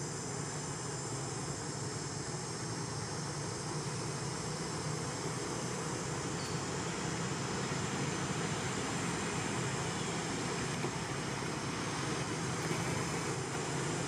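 Steady outdoor background noise: a high, even insect drone over a low hum, with no monkey calls.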